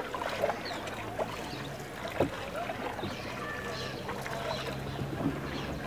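Water moving around a paddled wooden shikara boat, with a few short sharp splashes and a low steady hum underneath.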